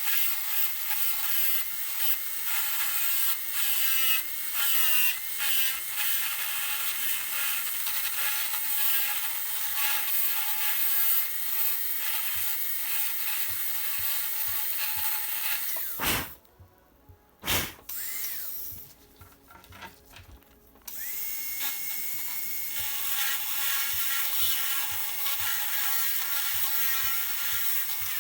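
Dental handpiece whining as its bur cuts a class I cavity in a lower molar, the pitch dipping as the bur bites in. It stops about sixteen seconds in, gives one short burst, then starts again a few seconds later.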